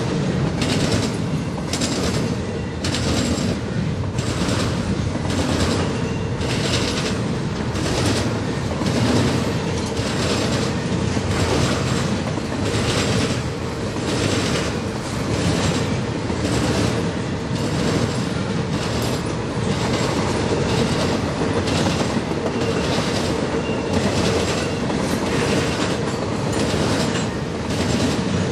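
Double-stack intermodal freight train rolling past: a steady rumble with a regular clickety-clack of steel wheels over rail joints.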